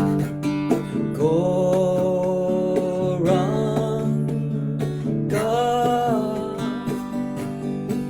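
Kirtan devotional music: a voice holds long notes that slide between pitches, twice, over a steady drone and a plucked accompaniment.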